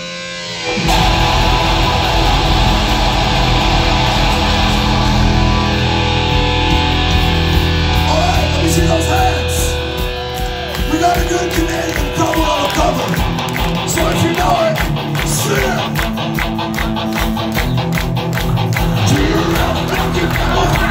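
Heavy metal band playing live on amplified electric guitars and drums. About halfway through, the drums switch to a fast, steady beat under a wavering melody line.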